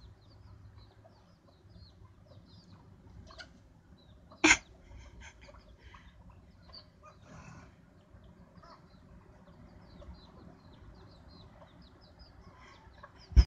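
Young chickens peeping and clucking, with many short high peeps through the whole stretch. One short, loud sound comes about four and a half seconds in, and another sharp one right at the end.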